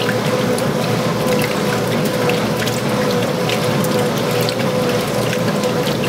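Early-1980s Montgomery Wards top-load washer agitating a full tub during the wash: water sloshing and splashing as the agitator churns the clothes back and forth, over a steady mechanical hum from the drive.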